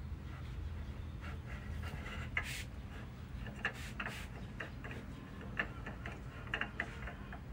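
Scattered light clicks and scuffs from a kitten's claws and paws on a tile floor as it bats and tugs at a hanging cloth strap, over a steady low rumble.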